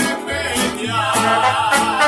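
Live mariachi-style band playing: strummed guitars over a plucked bass line in a steady beat, with a held, wavering melody line coming in about a second in.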